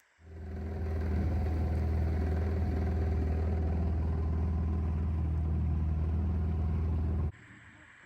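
An engine running steadily with a low, even drone. It builds up over the first second and cuts off abruptly near the end.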